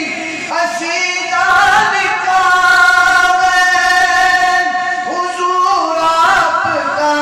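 A man singing a naat, an Urdu devotional song, into a handheld microphone, in long held notes with wavering ornamented turns and no instrumental accompaniment.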